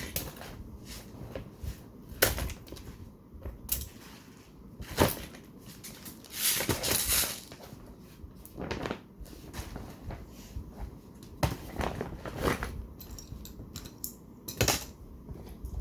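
Fidget toys being handled: irregular sharp clicks and knocks, with a longer rustle about six and a half seconds in.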